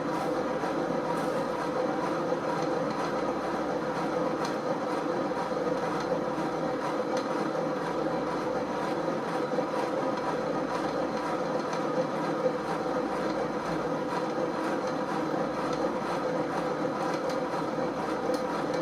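Wonder Core exercise bike being pedalled by a seated rider: a steady rumble from the flywheel and drivetrain with frequent clicking on top, the abnormal noise of the bike.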